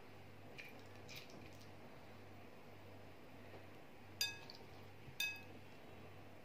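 Glass mixing bowl clinking twice, about a second apart, each a sharp strike with a short bright ring, as hands work sliced green peppers in a wet spice marinade; faint soft handling noises before the clinks.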